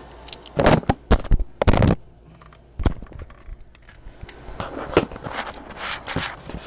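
Metal clicks and scraping from a Malino stiletto switchblade being worked by hand: its lock and blade being moved. There is a sharp click at the start, a cluster of louder scraping in the first two seconds, then quieter clicks and scrapes.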